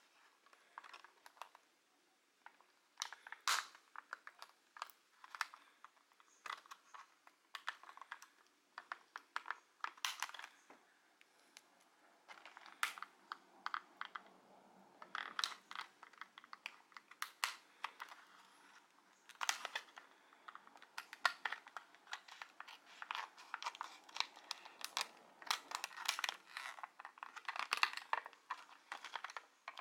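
Stiff clear plastic blister packaging being handled and pried open by fingers: irregular crinkles, crackles and sharp clicks, busiest in the second half.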